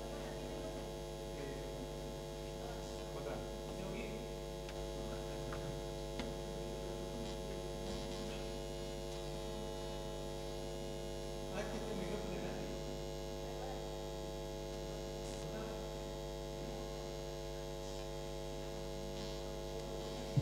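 Steady electrical mains hum with many even overtones, with only faint scattered ticks and rustles under it.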